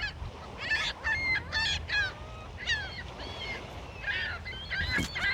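A flock of birds calling: many short, high calls in quick succession, several overlapping, over a faint low background rumble.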